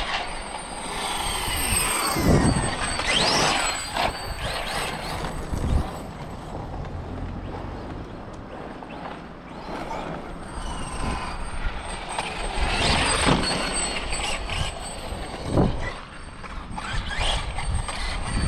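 Losi 5ive TE 3.0 1/5-scale electric RC truck running: the brushless motor's whine rises and falls with the throttle over tyre and drivetrain noise. A few sharp thumps, at about two, four, six and fifteen and a half seconds in, come as it goes over speed bumps.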